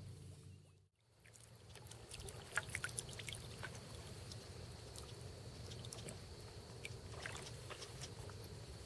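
Faint lapping and trickling of calm marsh water around a kayak, with a low steady hum and scattered light pops.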